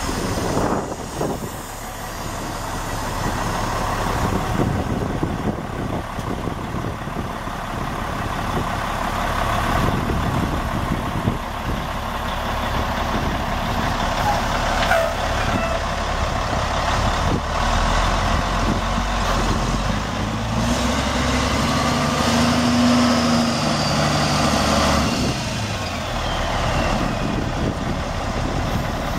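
Caterpillar C12 inline-six turbo diesel of a Sterling AT9500 semi tractor idling steadily while parked.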